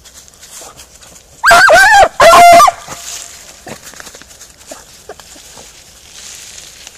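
Beagle harrier hound giving two loud yelping bays in quick succession, about a second and a half in, over leaves rustling underfoot.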